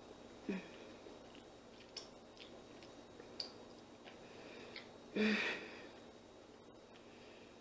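Faint close-miked mouth sounds of a person eating: quiet chewing with a few small lip-smack clicks, and one louder breathy sound about five seconds in.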